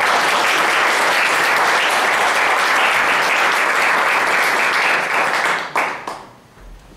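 Theatre audience applauding: dense, steady clapping that dies away about six seconds in.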